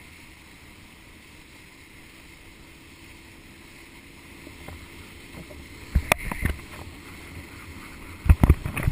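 Steady rush of water and wind at a camera riding low on a wakeboard towed behind a boat. Sharp splashes and buffets hit the camera about six seconds in and again near the end.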